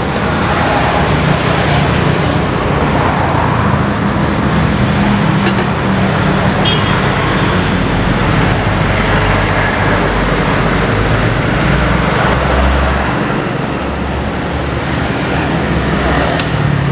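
Steady road traffic passing close by: vehicle engines and tyre noise, with a deeper rumble swelling briefly about two thirds of the way through.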